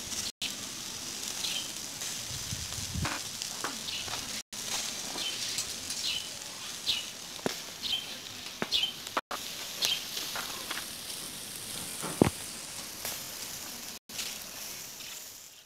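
Sauce-glazed chicken barbecue skewers sizzling on a charcoal grill: a steady hiss with scattered pops and crackles.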